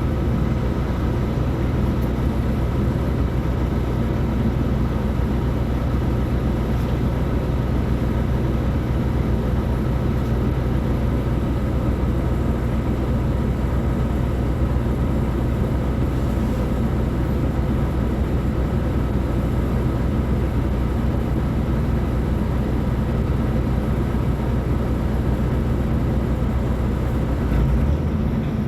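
Mercedes-Benz O500U bus's six-cylinder diesel engine running steadily, its pitch holding even, with a slight change in tone near the end.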